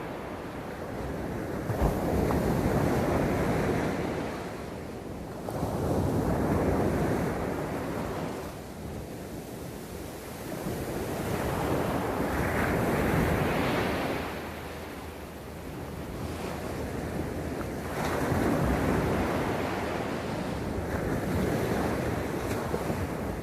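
Sea waves breaking and washing onto the beach, the surf rising and falling in swells every four to six seconds.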